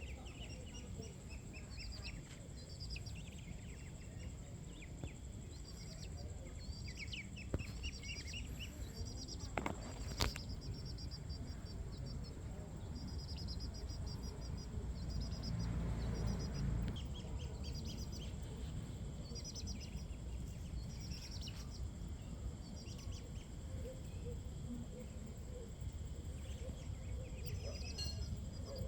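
Short, high-pitched chirping trills repeating every second or two over a steady low background rumble.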